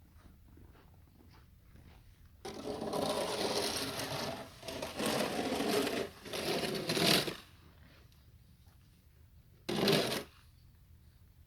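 Snow being scraped: about five seconds of rapid, rattling scraping in a few strokes, then one short scrape near the end.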